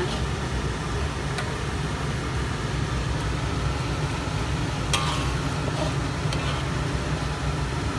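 A steady low rumble with a few light clicks and scrapes of a metal spatula against an aluminium wok as thick sambal sauce is stirred, the sharpest click about five seconds in.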